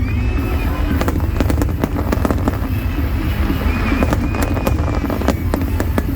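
Fireworks display: many sharp bangs and crackles going off in quick succession over a steady low rumble.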